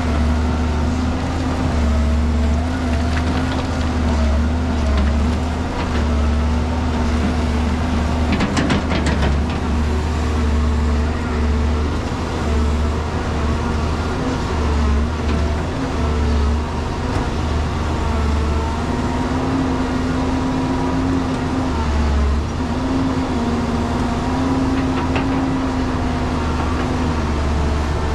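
Caterpillar E200B excavator's diesel engine running steadily under hydraulic load, its pitch wavering up and down as it works the arm to load soil into a dump truck. A short clatter comes about eight to nine seconds in.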